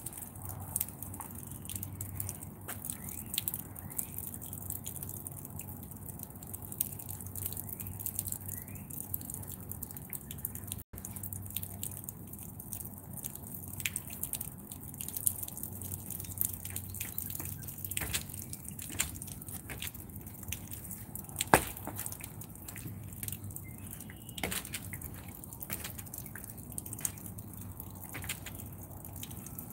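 Water spraying and dripping from the jets of a water-fed pole's brush head as its bristles scrub across window glass, with a steady hiss and many small clicks and ticks. One sharp click about two-thirds of the way through.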